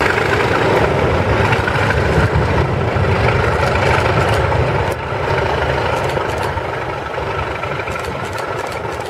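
Class 37 and Class 47 diesel locomotives under power as they pass, their English Electric V12 and Sulzer engines giving a heavy, throbbing growl. The sound eases after about five seconds as the train moves away.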